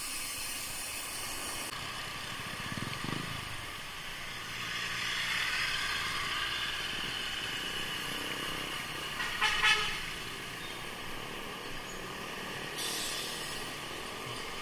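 Wind and road noise from a bicycle ride along a town street, with motor traffic passing. A brief horn toot sounds about two-thirds of the way through.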